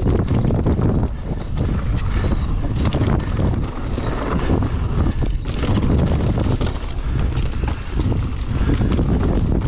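Wind buffeting an action camera's microphone as a Marin Alpine Trail XR mountain bike descends a dry dirt singletrack at speed, with the tyres running over dirt and the bike rattling and clattering over bumps, many short knocks throughout.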